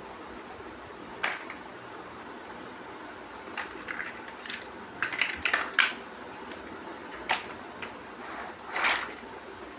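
Plastic building-block pieces being handled and pressed together by hand, making scattered short clicks and taps, with a quick cluster about five seconds in.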